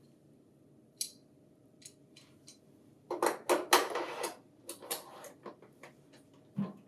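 Hard plastic and metal parts clicking and clattering as a stabilizer is fitted to a printer finisher: a single sharp click about a second in, a run of clattering knocks around the middle, then lighter scattered clicks and a duller knock near the end.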